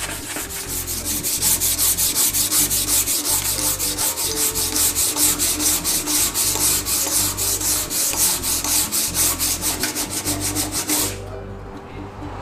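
Coarse 60-grit sandpaper rubbed by hand back and forth over the painted steel body panel of a Vespa LX scooter, in rapid, even scraping strokes, several a second. The paint is being scuffed so the dents show up before panel beating. The strokes stop abruptly about a second before the end.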